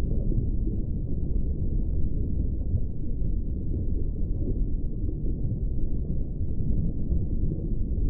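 Underwater ambience: a steady, muffled low rumble of moving water, with nothing in the upper range and no distinct events.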